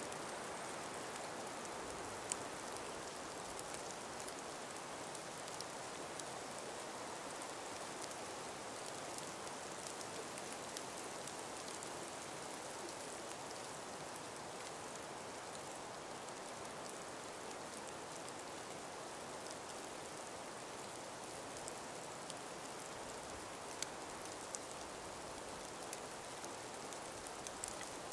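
Calm breeze moving through ice- and snow-covered forest trees: a soft, steady rushing with a few faint, scattered ticks.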